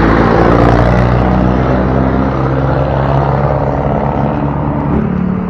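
A passenger jeepney's engine passing close by at the start, then a small motorcycle engine running steadily as the bike rides along the road.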